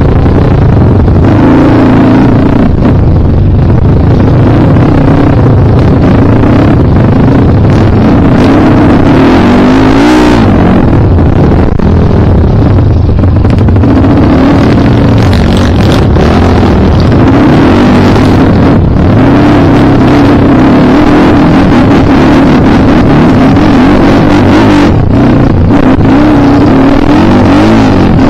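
Kawasaki KLX dirt bike's single-cylinder four-stroke engine running hard while being ridden off-road, its revs rising and falling continuously.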